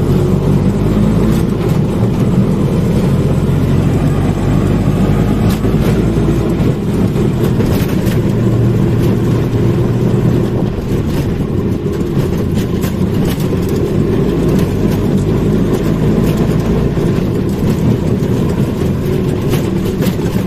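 Auto-rickshaw engine running steadily as it drives, heard from inside the open cab, its note changing about seven seconds in.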